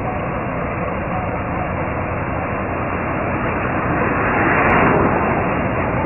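Combine harvester running: a steady engine drone mixed with dense mechanical noise, swelling louder about two-thirds of the way through.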